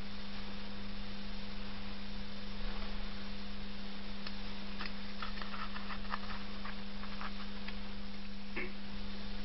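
Steady electrical hum with hiss, and about halfway through a scatter of faint small clicks from fingers handling a tea light's wax and its aluminium cup.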